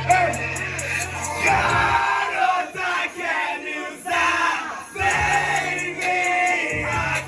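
Concert crowd singing along loudly over a song's backing track with long, sustained bass notes. The bass drops out for a few seconds in the middle, leaving mostly the voices.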